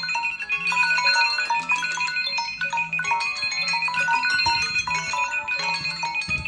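Timer alarms of several smartphones (Samsung, Alcatel, iPhone, Lenovo, Xiaomi) going off at once: several ringtone melodies overlap over a steady, rapidly repeating high beep.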